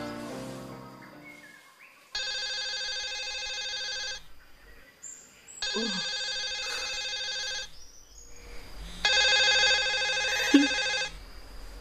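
Mobile phone ringing with an incoming call: an electronic ringtone sounds three times, each ring about two seconds long with short gaps between.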